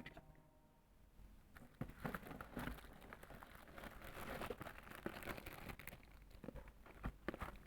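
Keyboard packaging being handled and unwrapped: crinkling and rustling with small clicks and knocks, starting about two seconds in.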